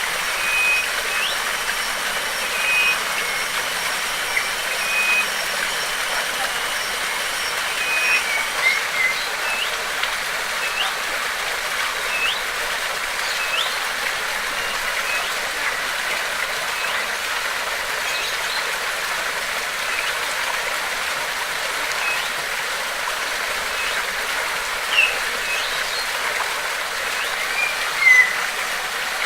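Steady rush of flowing water from a waterfall or stream, with a bird calling over it in short high notes, some flat and some flicking upward, repeated every second or two. A thin high steady tone runs until about a third of the way in, and a louder chirp comes near the end.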